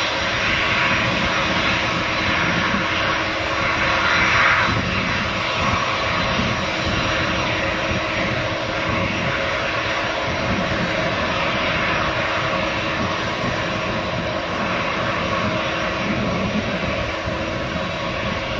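Twin-engine jet airliner, a Boeing 767-300, with its turbofan engines running in a loud, steady rush as it moves along the runway, swelling briefly about four seconds in.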